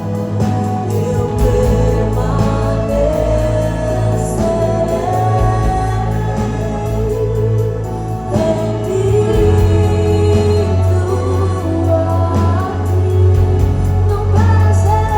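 Live gospel worship music: a group of voices singing a melody over band accompaniment with a steady, heavy bass line.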